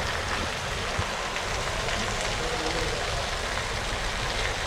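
Heavy rain falling steadily on a roof and wet ground, with water streaming off the roof edge.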